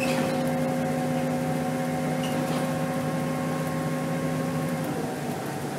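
Steady drivetrain hum and road noise inside a 2010 Scania K270 city bus cruising on a motorway, heard from the front of the cabin. Several steady tones drop in pitch and ease off a little near the end.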